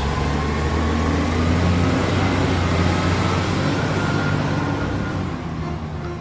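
A motor vehicle's engine running steadily, a low rumble with road noise on top, easing off slightly near the end.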